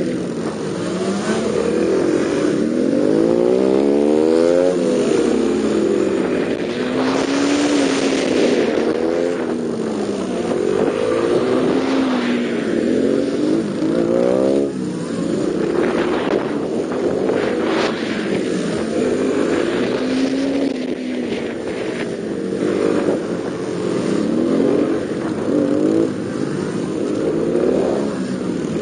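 Yamaha Serow 225WE's air-cooled single-cylinder four-stroke engine, heard from the rider's seat, revving up and dropping back again and again as it is throttled and shifted through tight turns; the pitch rises and falls every second or two.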